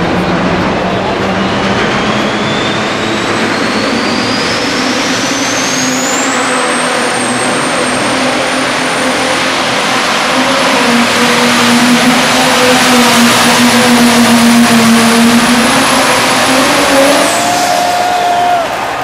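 Turbocharged diesel engine of an International Harvester Pro Stock pulling tractor at full throttle, dragging the weight-transfer sled. The turbo whine climbs steadily over the first few seconds, then holds high and shrill while the engine grows louder, and both fall away near the end as the throttle comes off.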